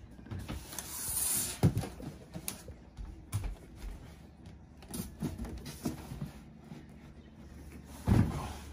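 Handling noises as a duct-taped styrofoam cooler is packed into a cardboard box: a short rustling hiss about a second in, then a string of knocks and thumps, the loudest about a second and a half in and near the end.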